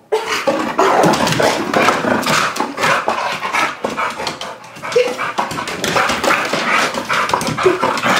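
Pit bull making continuous excited play noises, with a few short whines.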